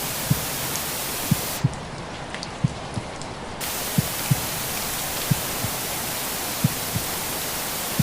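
Steady rain-like white-noise hiss over a recorded heartbeat: soft, low lub-dub double thumps about every second and a third. From about a second and a half in, the hiss drops quieter for some two seconds, with a few faint drop-like ticks, then returns.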